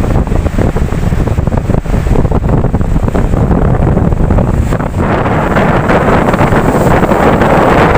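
Ocean surf with wind buffeting the microphone as a low rumble. About five seconds in, a wave breaks and a broad, hissing wash swells and holds.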